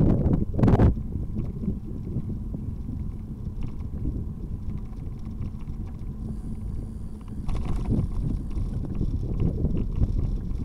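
Wind buffeting the microphone during a bicycle ride: a steady low rumble, with two louder gusts right at the start.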